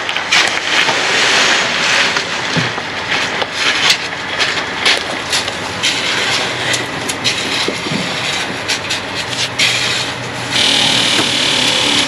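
Rake scraping and dragging through freshly poured wet concrete in repeated rough, gritty strokes as the concrete is spread and levelled.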